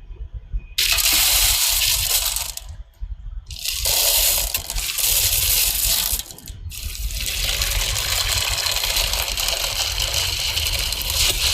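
Loud rushing, splashing water in three long stretches that each start and stop abruptly, with faint clinks mixed in.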